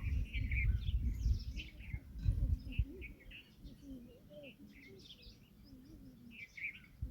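Birds chirping, many short high chirps in quick succession, over a loud low rumble that dies away about three seconds in.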